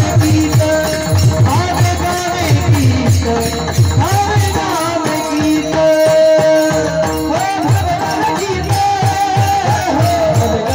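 Marathi Varkari kirtan music: a man singing a devotional tune in a high voice, with long held notes and glides, over steady drum strokes and jingling hand percussion.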